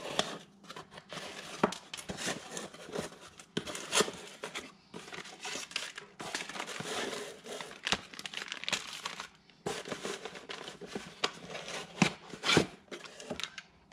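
A cardboard box being torn open by hand and plastic-bagged parts pulled out: crinkling plastic and cardboard rustling with many small taps and clicks, and a couple of sharper knocks on the workbench near the end as items are set down.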